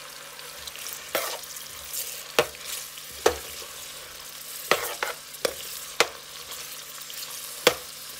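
Sliced onions, bell peppers, thyme and garlic sizzling in hot oil in a stainless steel pot as a spoon stirs them. The spoon knocks sharply against the pot about nine times.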